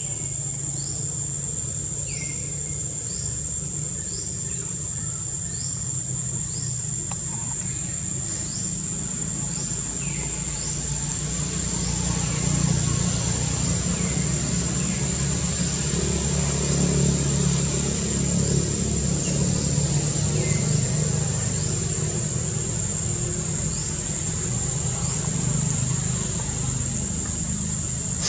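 Outdoor ambience: a steady high-pitched insect drone, short falling chirps every second or so, and a low rumble that grows louder through the middle.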